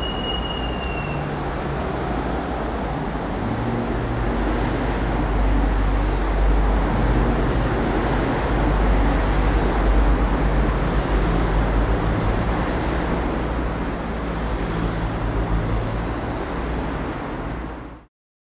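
Steady road traffic noise with a deep rumble underneath and a brief high whine in the first second. It cuts off suddenly near the end.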